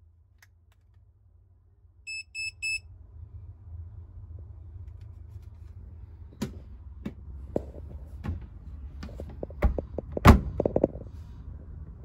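Handheld infrared thermometer beeping three times in quick succession as it takes a reading of the dryer drum. This is followed by a series of clicks and knocks over a low hum, the loudest a sharp thunk about ten seconds in.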